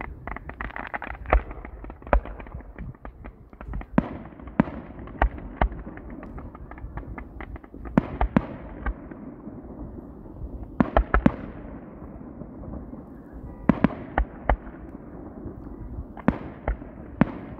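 A fireworks display going off: a rapid run of pops in the first second or two, then clusters of sharp bangs every few seconds, with a fading hiss after each cluster.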